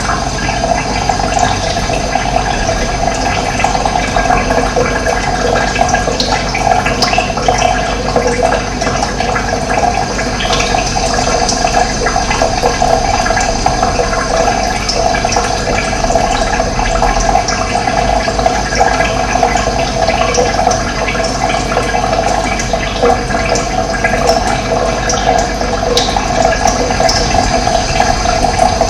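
Running water, rushing steadily.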